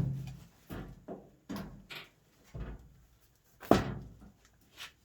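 Metal tool prying under the top panel of a Whirlpool dryer: a series of separate knocks and clicks on the sheet-metal cabinet. The loudest clack comes about two-thirds through, as the panel's clip lets go and the top pops up.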